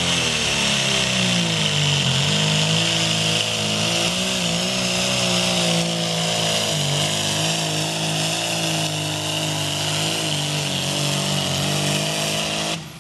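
Diesel farm tractor engine running hard at high revs. The pitch dips briefly about a second in, then holds steady with a slight waver, and the sound cuts off suddenly near the end.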